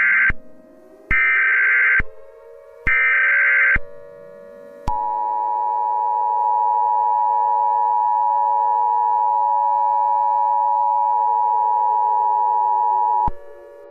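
Emergency Alert System signal: the screeching data bursts of the SAME header, three in a row about a second apart, then the two-tone EAS attention signal held steadily for about eight seconds and cut off sharply.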